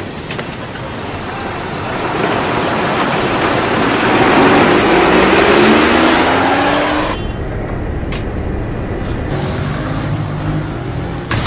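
City road traffic: a vehicle engine swells louder and rises in pitch as it accelerates, then cuts off suddenly about seven seconds in, leaving a lower, steady traffic rumble.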